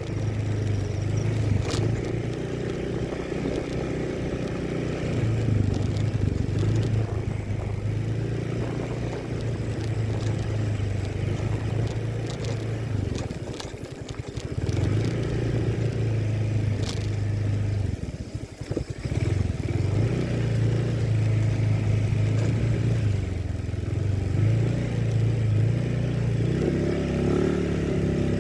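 Vehicle engine running steadily while driving over a rutted dirt road, with occasional knocks and rattles from the bumps. The engine note drops briefly twice, about halfway through and again a few seconds later.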